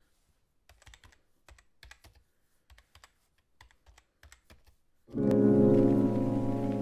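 Faint computer keyboard typing clicks, about a dozen separate keystrokes, as a name is typed out letter by letter. About five seconds in, much louder background music with sustained notes starts.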